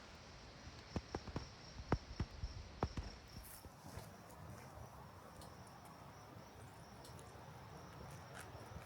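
Fruit-wood fire in a small portable firebox crackling, with a quick run of sharp pops in the first three seconds and then a quieter hiss. A faint, steady, high pulsing trill runs in the background.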